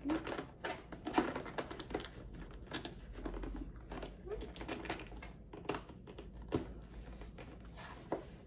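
Ribbon being untied from a cardboard gift box: irregular rustling with light scrapes and small taps as fingers work the ribbon against the box, with a few sharper taps in the second half.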